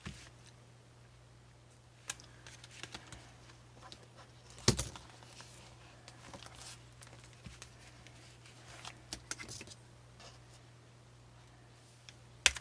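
Doll packaging being handled as plastic ties are worked loose from the doll: scattered small clicks, rustles and crinkles of plastic and card. Two sharp snaps stand out, one a little under five seconds in and one near the end.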